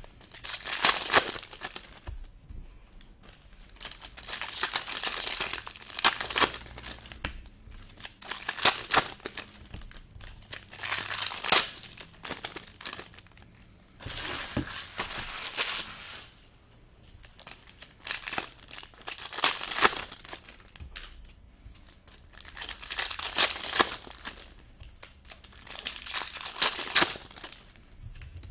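Foil wrappers of hockey card packs being torn open and crinkled, in repeated bursts every two to three seconds.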